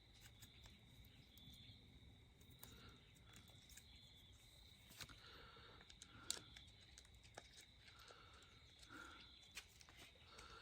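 Near silence: a faint steady high-pitched background tone with a few light clicks.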